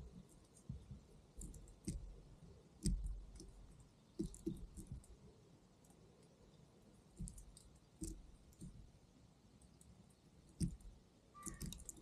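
European robin pecking at a fat-filled coconut-shell feeder close to the microphone: irregular sharp taps and knocks, some with a dull thud.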